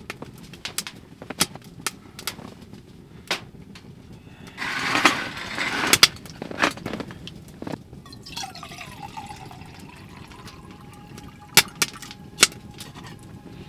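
Liquid poured from a bottle into a mug, a steady pitched pour from about eight seconds in, with sharp crackles and pops from a wood stove fire. A short burst of rushing noise comes about a third of the way in.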